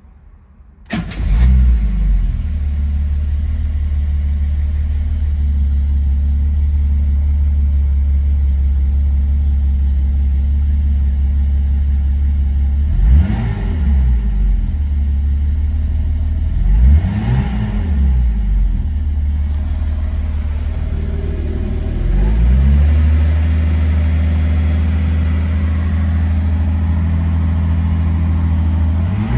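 A 1970 Mercedes-Benz 280SL's fuel-injected 2.8-litre straight-six cold-started: it fires and catches about a second in, then runs at a fast cold idle near 2,000 rpm. The throttle is blipped twice midway through, the revs rising and falling each time, and again right at the end.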